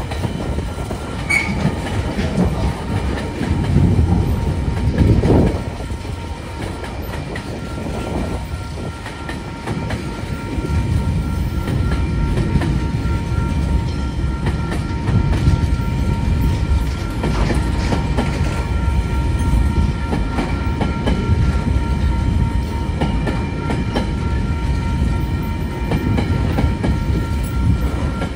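TasRail freight train's container flat wagons rolling past close by, a steady rumble of steel wheels on the rail that grows a little louder about a third of the way in.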